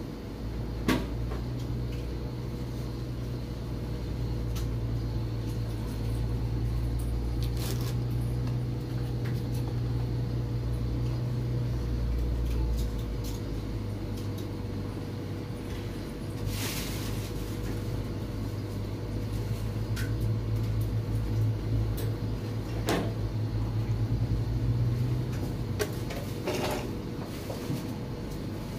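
Plastic flower pots and plastic bottles being handled and set down on a table: a few scattered knocks and clicks over a low steady hum.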